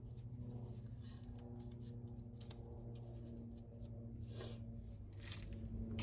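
Faint rustling and light ticks of tools or parts being handled, over a steady low electrical hum.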